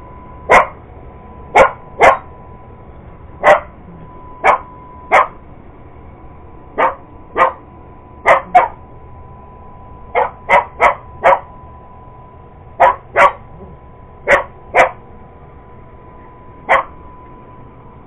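Cocker Spaniel barking at a running iRobot Roomba robot vacuum: about nineteen sharp single barks, some alone, some in quick pairs or runs of three or four, with short gaps between. A faint steady tone runs underneath.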